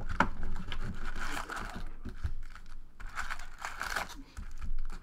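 Foil-wrapped trading-card packs crinkling and rustling as they are pulled out of an opened cardboard hobby box, with scattered short clicks of cardboard.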